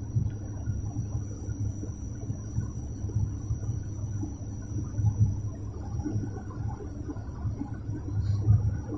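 Cabin noise of a propeller airliner in flight: the engines and propellers make a steady low rumble that swells and eases slightly, with a faint steady high whine above it.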